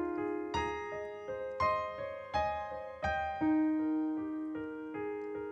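Solo piano playing a slow accompaniment: notes and chords struck about one to two times a second and left to ring.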